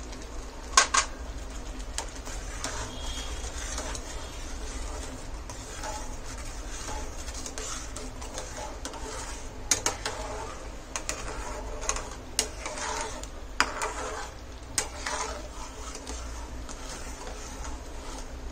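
Metal spatula stirring thick semolina kheer in a steel pan, scraping along the pan with sharp clinks and knocks against its sides now and then, loudest about a second in, as the saffron milk is mixed in.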